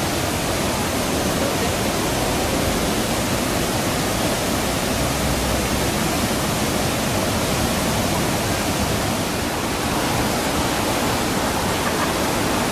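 Mountain stream rushing over rocks, a steady, even noise of running water.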